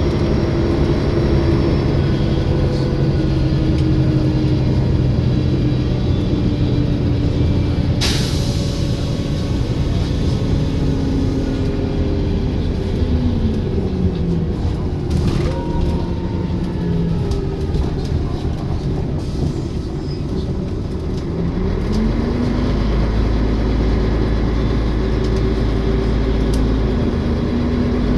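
Olympian double-decker bus heard from on board, its diesel engine pulling through gear changes with the pitch dropping and climbing again several times. A short sharp air hiss comes about 8 seconds in, and the engine runs heavier and deeper near the end.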